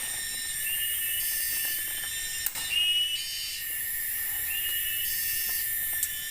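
Dense chorus of forest insects, a steady high hiss with layers pulsing on and off, with a short rising whistled call repeating about once a second. A sharp click sounds about two and a half seconds in.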